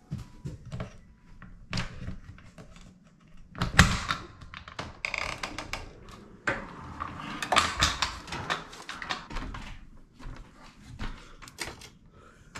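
Irregular knocks, clicks and thumps in a small room, the loudest a single thump about four seconds in.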